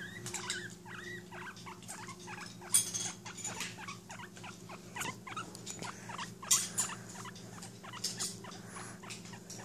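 Guinea pig making soft, short squeaks amid scattered clicks and rustling.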